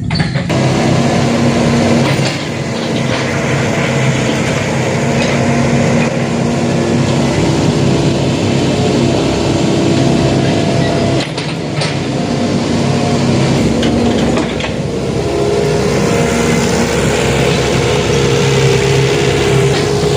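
Heavy diesel engine of an excavator running steadily under load, its pitch shifting now and then, with a dip about 11 seconds in.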